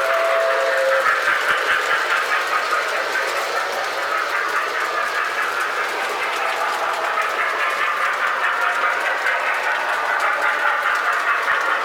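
Lionel O-gauge toy train rolling around the layout's track: a steady running hum with fast, even clicking of the wheels over the rail joints. The tail of a two-note locomotive horn cuts off about a second in.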